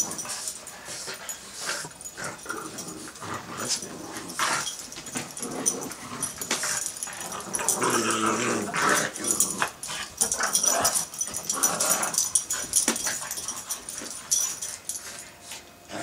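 Several Boston terriers growling in play as they tug at a rope toy, with scuffling throughout. The growling is loudest from about eight seconds in.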